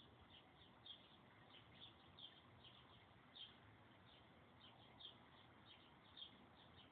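Faint bird chirping: short, high chirps repeated irregularly, roughly two a second, over a low steady hiss.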